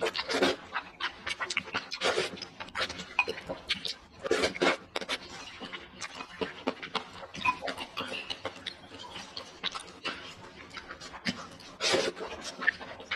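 Noodles being slurped from a bowl of broth and chewed, with loud slurps about half a second in, near two seconds, around four and a half seconds and near the end, and wet chewing and mouth smacks in between.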